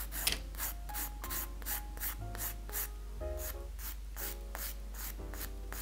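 A 150/180-grit nail file rasping across a fingernail in quick, even short strokes, about three a second.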